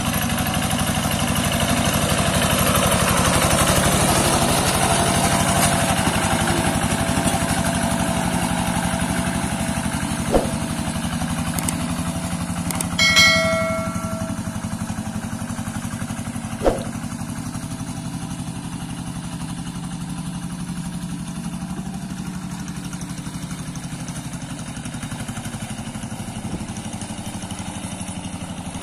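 Diesel engine of a Quick G1000 two-wheel hand tractor running steadily under load as it plows a wet rice paddy, growing fainter as the tractor moves away. About a third of the way in comes a click, then a short bell-like chime from a subscribe-button sound effect, then another click.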